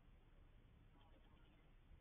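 Near silence: a faint steady hiss and low rumble, with a faint brief sound about a second in.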